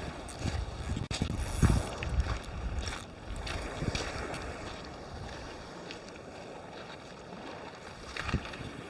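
Wind buffeting the microphone over a steady wash of water at the shore, with a few knocks and rustles of handling in the first two seconds.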